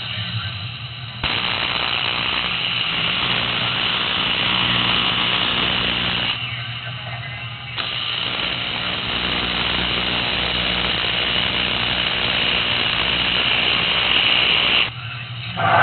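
AC TIG welding arc on aluminum, burning with a steady, harsh buzz, unpulsed. The arc strikes about a second in, breaks off near the middle, strikes again a second or so later and runs until shortly before the end, over the welding machine's low hum.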